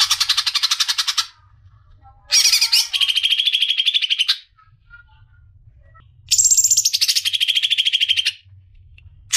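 Cucak ijo (green leafbird) singing: phrases of very rapid, trilled notes, each lasting one to two seconds, separated by pauses of about a second. Three full phrases, with a fourth starting at the very end.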